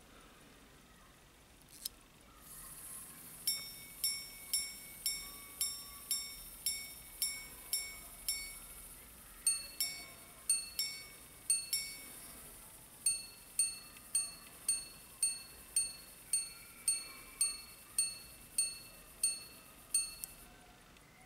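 Minute repeater pocket watch striking the time on its gongs. A click as the repeat slide is released, then ten strikes on the low gong for the hours, three two-note ding-dongs for the quarters, and about thirteen strikes on the high gong for the minutes, with the faint whir of the repeater's governor running underneath.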